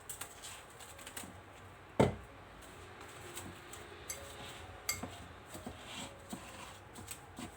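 A bowl being handled and covered with cling film: scattered light clinks and crackles, with one sharp knock about two seconds in and a smaller one near five seconds.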